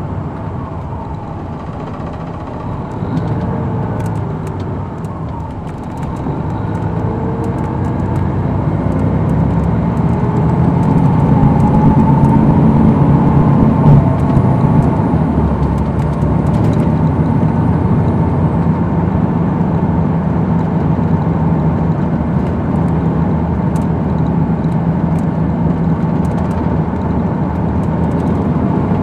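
Detroit Diesel Series 60 engine of a 2002 MCI D4000 coach running under way, heard from inside the cabin. It gets louder over several seconds partway through, then holds steady, with scattered light clicks and rattles.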